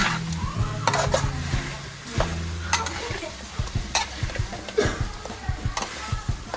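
A utensil stirring food in a pot, with irregular sharp clinks against the pot over sizzling frying.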